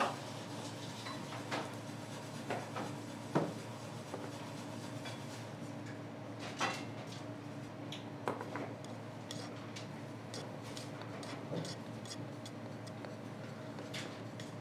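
Scattered light clinks and taps of dishes and utensils, a dozen or so at irregular intervals, the sharpest about three and a half seconds in, over a steady low hum.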